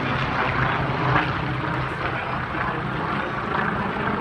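Propeller airplanes in formation flying over, their engines running in a steady drone that eases off slightly near the end.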